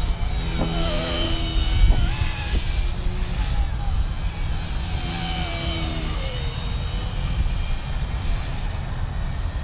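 Small electric RC helicopter (Blade 130 S mechanics in a LEGO Technic frame) flying, heard as a thin high-pitched motor and rotor whine that shifts in pitch as it manoeuvres, over a low steady rumble.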